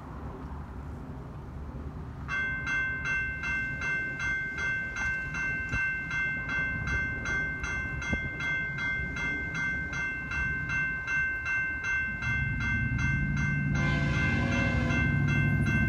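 A railroad grade-crossing bell starts ringing about two seconds in, a steady electronic ding about twice a second. Near the end the rumble of the approaching GE ES44 diesel-electric locomotives grows louder, and the locomotive horn sounds in the last couple of seconds.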